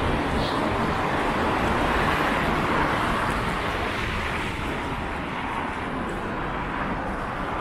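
Steady road traffic: cars driving past on a wide city avenue. The noise swells briefly as a car goes by about two to three seconds in.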